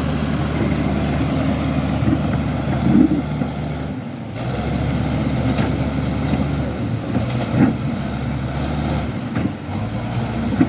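Bulldozer's diesel engine running steadily, dipping briefly about four seconds in and then picking up again, with a few short knocks from the blade working among stones.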